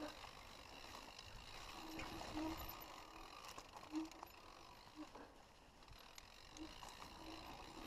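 Mountain bike rolling down a dirt singletrack: faint tyre and trail noise with scattered clicks and light rattles from the bike, and a few brief low tones, the loudest about four seconds in.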